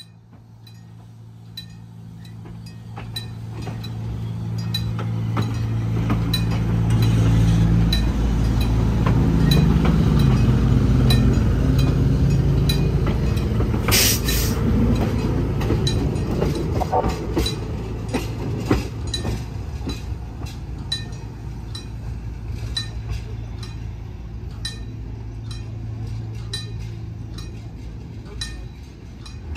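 Metro Rail light rail car running past at low speed, a steady low motor hum and wheel-on-rail rumble that builds as it approaches, peaks as it passes close, then eases away. Regular clicking runs throughout, with one sharp clank about midway.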